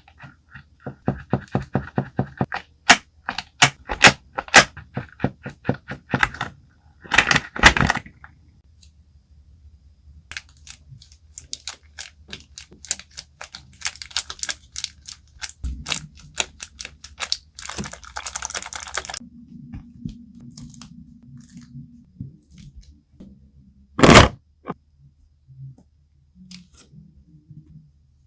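Fidget toys being clicked and handled: a quick run of sharp clicks and clacks for the first several seconds, then scattered clicks with a short crinkling stretch, and one louder burst near the end.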